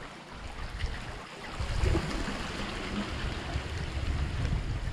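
Seawater washing and rushing among shoreline rocks, a steady hiss with a low rumble that grows from about two seconds in.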